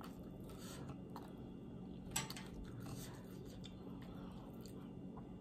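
Faint soft clicks and rustles of fingers pulling the meat off the bones of an air-fried chicken wing, with one sharper click about two seconds in.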